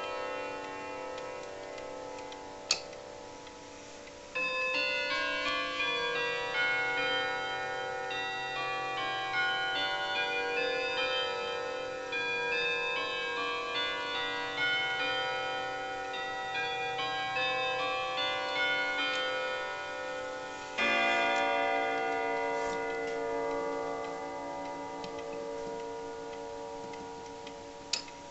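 Jauch wall clock's chimes playing a full-hour chime melody of many ringing notes, then a single louder, deeper hour strike about 21 seconds in that slowly rings away. The clock ticks underneath, and there is a sharp click about 3 seconds in and another near the end.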